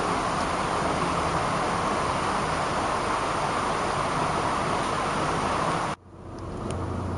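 Steady rushing, hiss-like background noise. It cuts off abruptly about six seconds in, then comes back lower with a low hum beneath.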